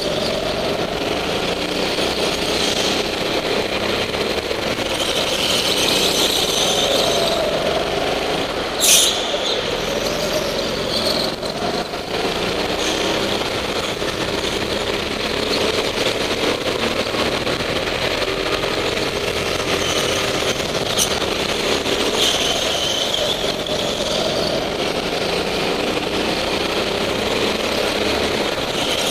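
Go-kart engines running, rising and falling in pitch as the karts accelerate out of corners and lift into them, with tyre squeal in places. A sharp knock about nine seconds in is the loudest moment.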